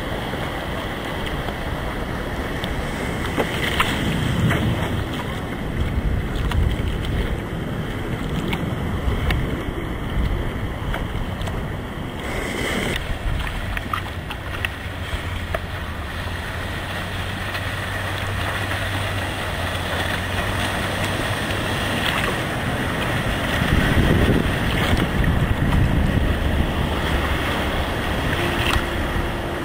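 Waves washing and breaking around the camera at water level, with wind buffeting the microphone. A steady low hum runs under it through the middle stretch.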